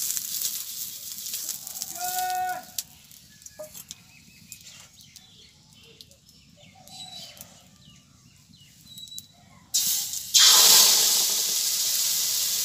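Urad dal pitha batter hitting hot oil in an iron kadai and sizzling loudly, starting suddenly about ten seconds in. Before that the oiled pan hisses faintly, with a short animal call about two seconds in.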